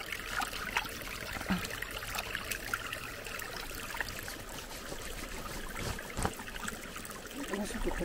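Clear mountain stream trickling over stones, with small splashes of water as a muddy sneaker is washed in it by hand.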